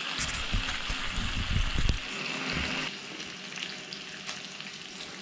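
Bacon sizzling in a non-stick frying pan on a portable gas camping stove, with loud knocks and bumps in the first two seconds as the rashers are moved about with tongs. The sizzle eases a little about three seconds in.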